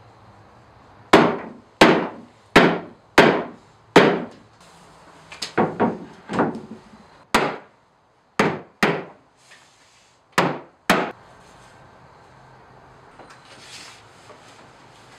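Hammer blows on a plywood cabinet, about a dozen sharp knocks, each with a short woody ring. The first five come at an even pace, and the rest follow in irregular pairs and clusters, stopping about eleven seconds in.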